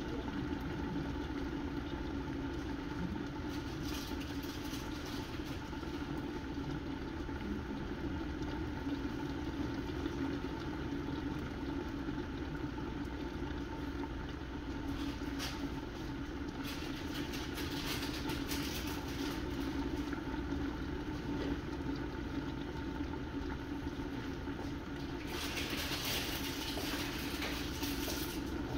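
Curry chicken simmering in a covered pot, bubbling and sizzling under a glass lid, with a steady low hum throughout. The sizzling hiss comes and goes and is strongest near the end.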